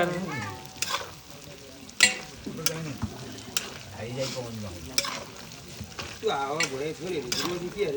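Mutton bhutan (goat offal) sizzling as it fries in a pan, with a metal spoon or ladle stirring and scraping and now and then clanking sharply against the pan.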